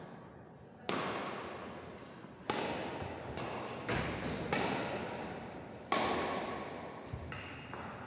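Badminton rackets striking a shuttlecock back and forth in a rally, five sharp hits about a second apart, each ringing out in the hall's echo, with a couple of lighter knocks near the end.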